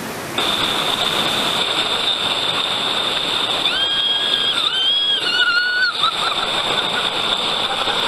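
Rushing white water pouring over a natural rock waterslide in a jungle stream, a steady splashing rush. A thin, steady high-pitched whine comes in under a second in. A high, wavering cry rises over the water between about four and six seconds in.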